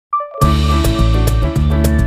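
Intro music: a brief chime, then a track with bass and a steady beat comes in about half a second in.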